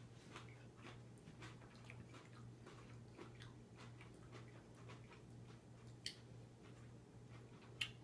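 Faint chewing of crunchy fermented cabbage (sauerkraut), a quiet run of small crunches at about two to three a second, with two sharper clicks near the end, over a steady low hum.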